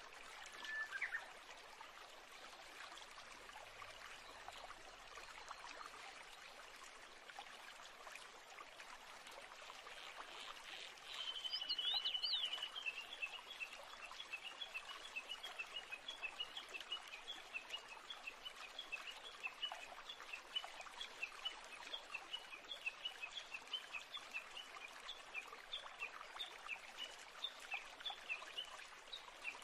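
Faint background ambience of birds chirping over a steady soft hiss. There is a single short chirp about a second in. A little over a third of the way in comes a brief trill, then a long run of quick high chirps, about four a second.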